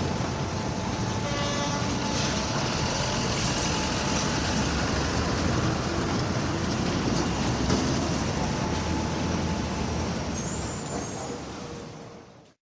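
Steady din of a city skyscraper construction site mixed with traffic noise, with a brief high-pitched tone about a second and a half in. It fades out over the last couple of seconds.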